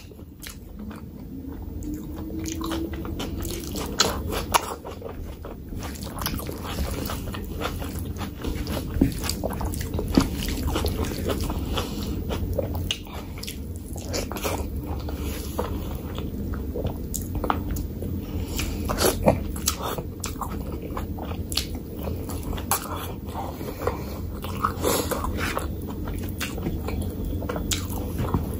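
Close-miked eating sounds of a person chewing and biting mouthfuls of mutton curry and rice eaten by hand, with frequent irregular sharp mouth clicks and smacks.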